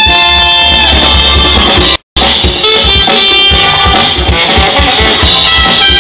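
Live band playing: trumpet and trombone holding notes over electric bass and drum kit, with a steady beat. The sound cuts out completely for a split second about two seconds in.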